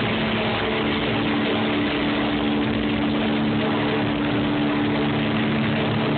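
Loud live hard rock in an arena, overloading a phone's microphone: distorted guitars holding steady low notes under a dense, noisy wash of sound.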